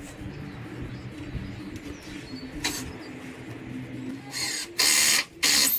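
Cordless drill-driver driving screws into timber in three short bursts in the last second and a half, the last two loud.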